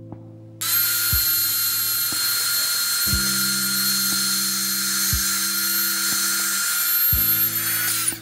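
Handheld electric air pump running, blowing air into a clear PVC-film inflatable. It switches on about half a second in and cuts off just before the end, a steady whine with a hiss of rushing air.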